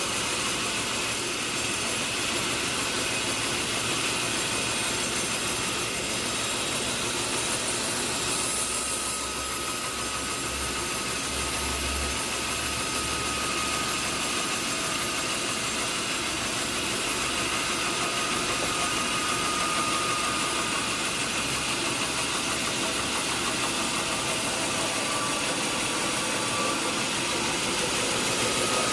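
Sawmill machinery running steadily with an engine-like drone and a faint thin whine in the middle stretch.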